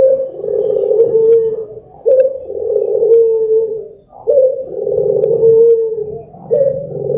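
Barbary dove (puter) cooing: four long, low coos about two seconds apart, each opening with a short higher note and then holding a slightly falling tone.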